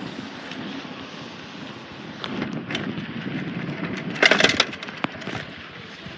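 Bicycle being ridden over rough ground: a steady rolling rumble with several rattles and knocks, the loudest a short clatter a little after four seconds in.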